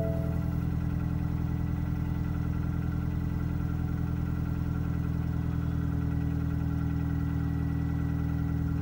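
The 2014 Ford Fusion's 2.5-litre four-cylinder engine idling steadily just after a cold start, through a muffler-deleted exhaust.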